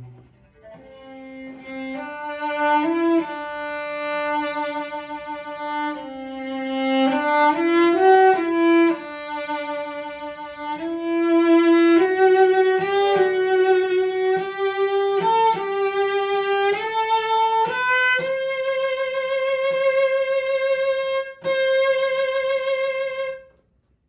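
Eugene Chartreux cello, made in Lyon around 1910, bowed solo: a slow melody climbing into the upper register. It ends on a long held high note with vibrato, broken once briefly, that stops near the end.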